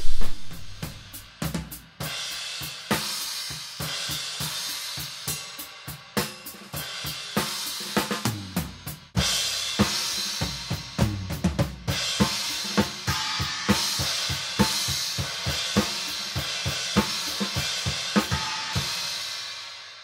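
Drum kit heard only through a pair of overhead microphones, soloed with EQ: a steady rock beat of snare and kick hits under a wash of cymbals. About nine seconds in it switches from Blue Hummingbird small-diaphragm condensers to Cascade Fathead ribbon mics, and it fades out near the end.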